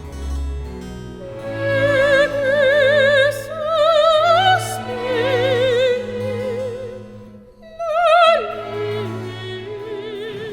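Operatic singing over an orchestral accompaniment: a single high voice holding long notes with a wide vibrato.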